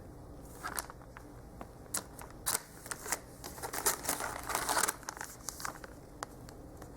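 Handling noise: soft rustling and light clicks as small plush toys are turned over and moved in the hands, busiest in the middle and settling near the end.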